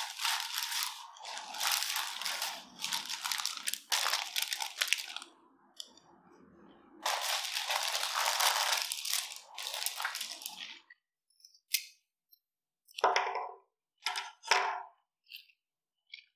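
Flower wrapping crinkling and rustling in two long stretches as a bunch of tulips is unwrapped, then a few separate light knocks and taps near the end.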